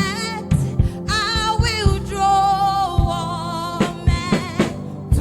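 Gospel praise music: a singer's voice over drums and a steady bass line.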